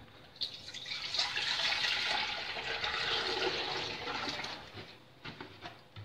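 Milk poured from a plastic bowl into a stainless steel pot: a light knock at the start, then a steady splashing pour of about four seconds that trails off.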